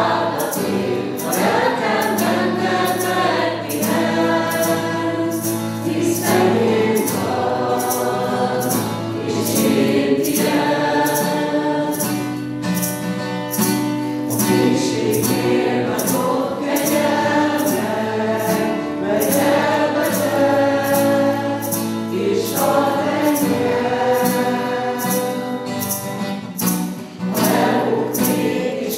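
A group of voices singing a worship song together, with a steady beat of sharp ticks keeping time, about one and a half a second.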